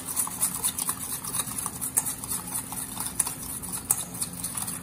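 Wire whisk beating an oil and lemon-juice salad dressing in a stainless steel bowl, its tines ticking and scraping rapidly and unevenly against the metal.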